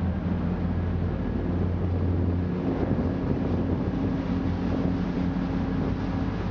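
Jet boat engine running steadily, with wind and water noise; the engine note shifts about two and a half seconds in.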